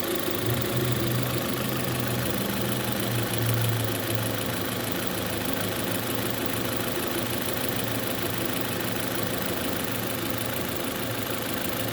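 Lada Granta 11182 eight-valve engine idling steadily with a rhythmic knock. The knock comes from the top of the valve cover around the third cylinder and shows only once the engine is warm, at 60–70 °C; its cause is not known.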